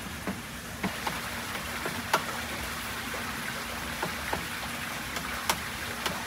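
Steady outdoor background hiss with a handful of sharp, scattered clicks or taps, the loudest about two seconds in.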